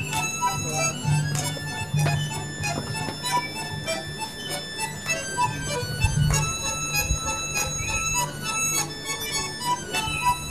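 Accordion orchestra playing a Greek folk medley: reedy held chords and melody lines with frequent short accents.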